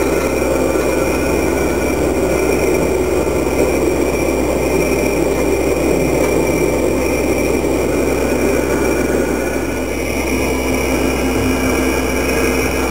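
CNC rotary fourth-axis motor slowly turning a four-jaw chuck, a steady mechanical hum and whine that eases slightly about ten seconds in.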